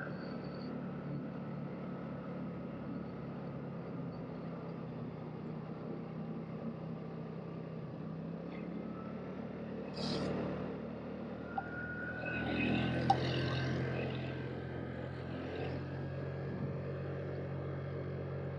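2007 Vespa LXV 150 scooter's 150cc single-cylinder engine running at a steady cruise, with tyre and wind noise. A brief hiss comes about ten seconds in, and a louder swell of noise follows a couple of seconds later.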